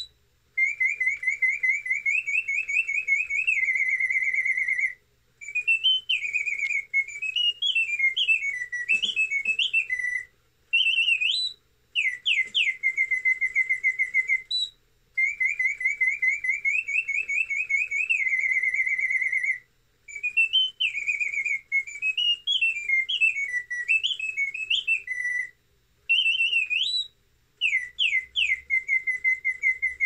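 A bellows-driven multi-pitch whistle in a hand-made German mechanical singing-bird automaton plays a birdsong melody with vibrato. Fast trilled notes and quick rising and falling slides come in phrases with short pauses between them, and the whole song starts over about halfway through.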